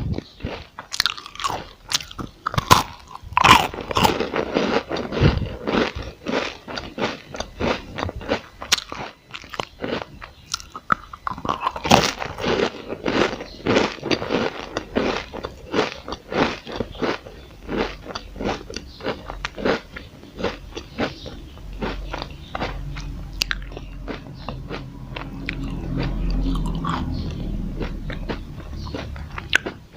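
Close-miked biting and crunchy chewing of a crispy chocolate roll: a dense run of sharp crackles, busiest in the first half. A low rumble swells for a few seconds near the end.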